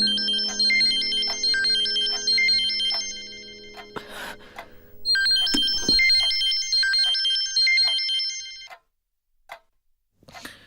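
A phone's electronic ringtone plays its melody of quick, high beeping notes twice, with a short gap about four seconds in. It cuts off near the end as the call is answered.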